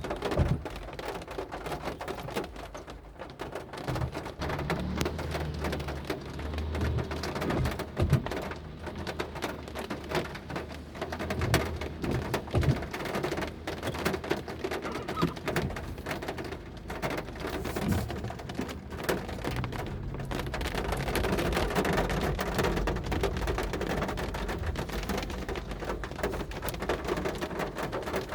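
Heavy rain falling steadily, with many drops ticking on hard surfaces. A low rumble rises for a few seconds about five seconds in.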